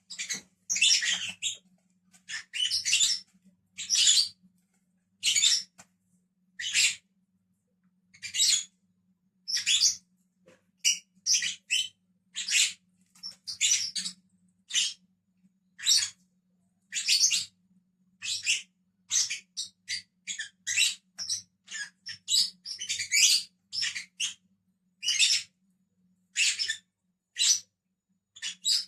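Lovebirds giving short, shrill chirps about once a second, at times in quick clusters of two or three.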